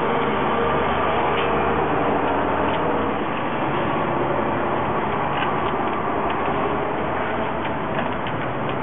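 Street traffic: a steady vehicle engine hum over road noise, easing off about three seconds in, with a few faint clicks.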